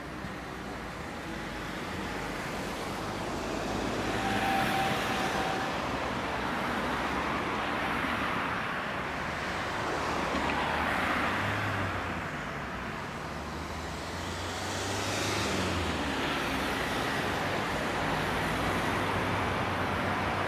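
Airbus A321 jet engines on approach to land: a broad rushing roar with a low drone under it, swelling and easing several times.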